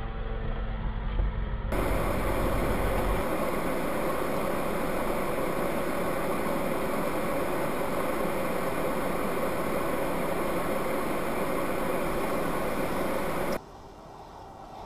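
Steady driving noise of a car, engine and tyre rumble, as picked up by a dashcam microphone. The sound changes abruptly about two seconds in, then drops to a much quieter background near the end.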